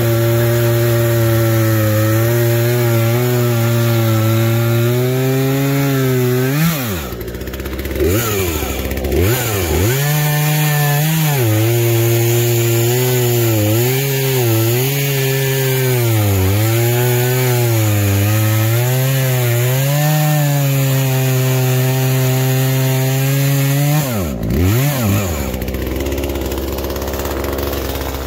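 Chainsaw cutting through an ash log, its engine note wavering under load. The throttle drops and comes back up about seven and nine seconds in, and drops again near the end, after which the saw idles.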